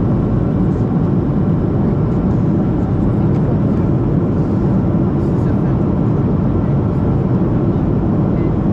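Steady, unchanging cabin noise inside a Boeing 737-700 airliner in descent: rushing airflow and the CFM56 engines' low rumble, mostly deep in pitch.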